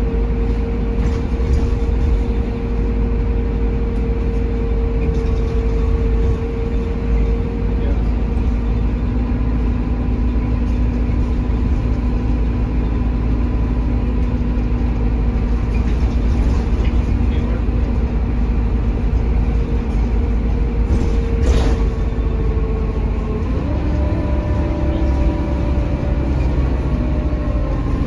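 Mercedes-Benz OH1830LE city bus heard from inside the passenger cabin: steady low rumble of its Mercedes OM926 diesel engine with a whining driveline tone that changes pitch about 23 seconds in. A single sharp knock about 21 seconds in.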